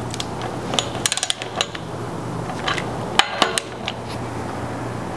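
Ratchet of a torque wrench clicking in short, quick runs as the brake-disc bolts are snugged down, over a low steady hum.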